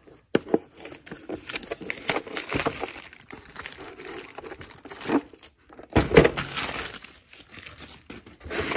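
Packaging of a power steering pulley tool kit being opened and handled, with irregular crinkling, rustling and small clicks. The loudest burst comes about six seconds in.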